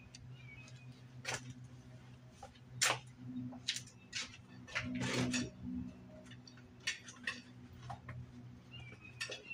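Scattered clicks and light metallic clatters of hand tools being handled, about nine in all, over a steady low hum.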